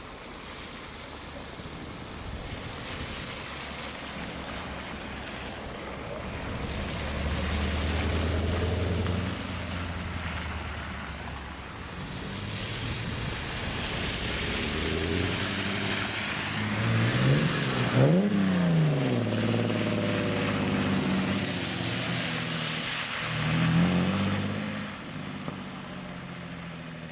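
BMW cars driving past one after another through standing water, engines running and tyres hissing and splashing through the puddles. One car's engine note rises and falls as it goes by about two thirds of the way through, and another passes near the end.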